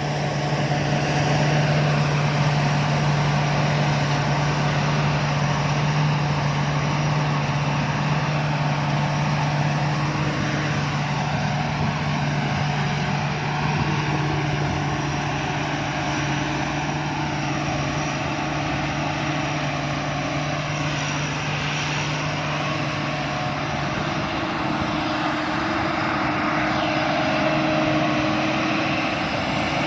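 Sakpattana KMT 240 rice combine harvester running steadily, its engine and threshing machinery giving a continuous drone with a strong low hum that weakens in the last few seconds.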